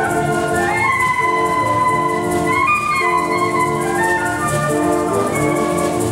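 Wind orchestra playing live: flutes and clarinets carry a high melody that steps upward, over held chords that are repeated about once a second.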